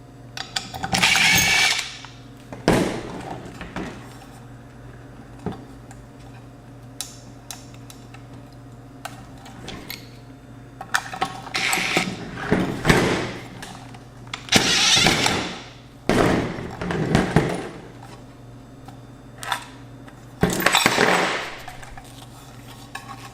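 Tools working on a car amplifier's aluminium case and screws: half a dozen rasping, scraping bursts of about a second each, with small clicks and knocks between, over a steady low hum.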